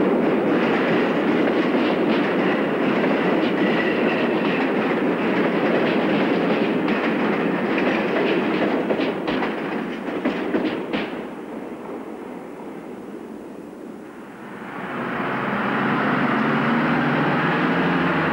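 Train running through a tunnel: a loud, dense rushing rumble with a quick run of rail clicks about eight to eleven seconds in. The noise then dies away and swells again a few seconds later.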